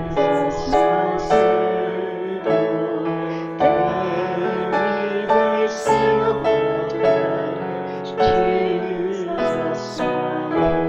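Hymn played on piano, with singing.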